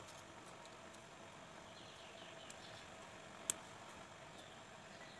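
Quiet handling sounds of bare hands mixing mashed potato and chopped tomato in a plastic tub: soft faint ticks and one sharp click about three and a half seconds in, over a faint steady hum.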